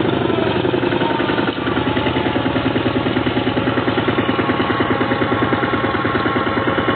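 Single-cylinder diesel engine of a two-wheel walking tractor running under way, a loud, rapid and even chugging.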